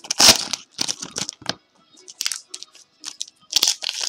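Foil wrapper of a trading card pack crinkling and tearing as it is ripped open by hand, in short irregular bursts.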